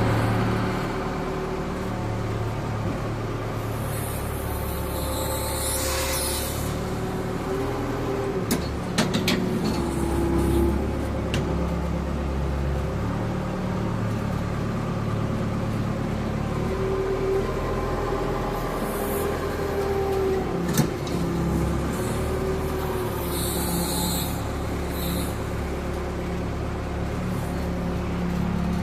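Excavator engine running steadily, its pitch and load shifting as the machine works, with a whine that rises and falls at times. A few sharp knocks come in the middle and near the end, along with several short bursts of hissing.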